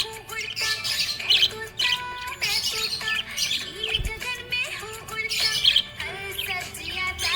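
Budgerigar chirping and warbling in a rapid, continuous stream of short twittering calls.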